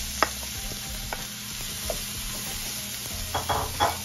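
Cauliflower florets with carrot and bell pepper strips sizzling in olive oil in a hot nonstick frying pan, stirred with a wooden spatula that knocks and scrapes against the pan several times, most often near the end.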